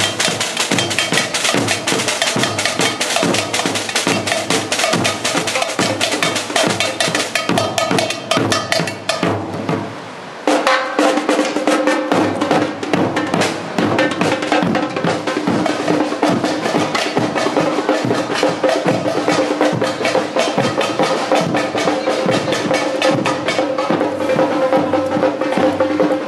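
Samba batucada drumming: large surdo bass drums, repinique and snare drums playing a fast, dense rhythm. About ten seconds in the sound cuts suddenly and the drumming carries on with two steady tones underneath.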